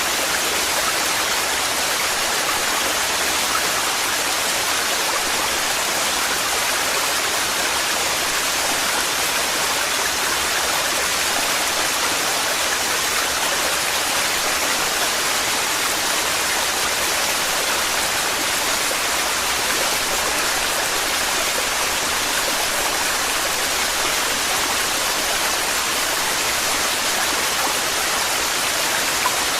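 Waterfall with heavy, torrential flow, an even rushing roar of falling water.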